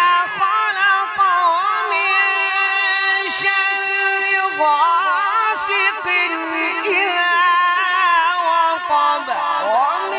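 A male qari's melodic Quran recitation (tajweed) into a microphone. It runs in long, drawn-out phrases whose pitch wavers in ornamented runs, and the melody shifts higher about halfway through.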